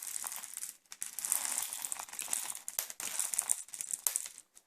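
Plastic packaging crinkling and rustling as it is handled, with a few small clicks, stopping suddenly shortly before the end.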